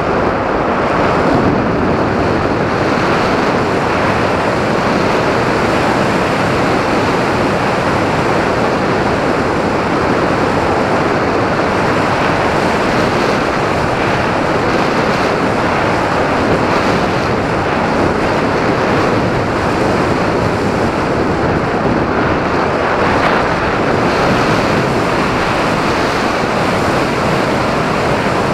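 Steady rush of wind across the microphone of an onboard camera on an RC glider in flight, an even roar with no breaks.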